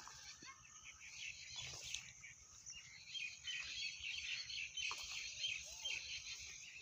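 Faint chirping of many small birds, short overlapping calls running on without a break.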